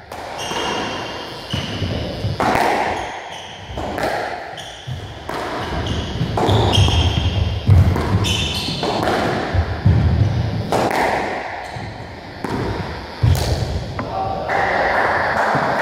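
Squash rally: the ball smacking off rackets and walls again and again, with short high squeaks of court shoes on the wooden floor and the players' footfalls.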